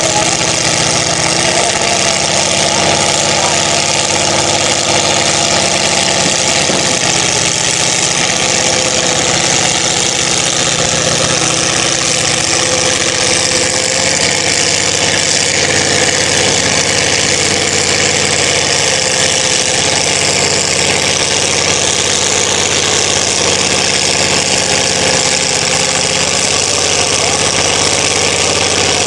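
Pickup truck's engine running steadily as the truck works through a deep mud bog, with a constant hiss over it.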